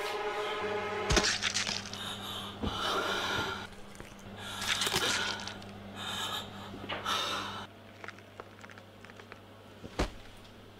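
A person breathing hard in ragged, gasping breaths, about five in all, with a sharp knock about a second in and another near the end, over a low steady hum.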